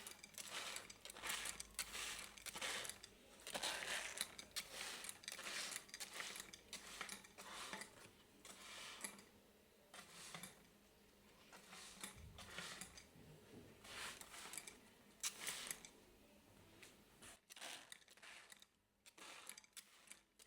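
Faint, irregular clicks, taps and rustles of small things being handled, stopping briefly a little before the end.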